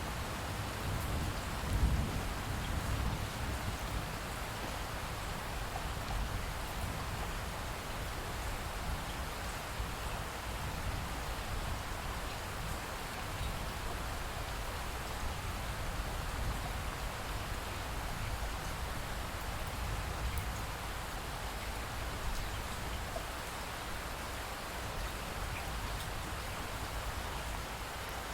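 Steady light rain falling and dripping, with scattered drops ticking, after a thunderstorm. A low rumble of distant thunder dies away in the first few seconds.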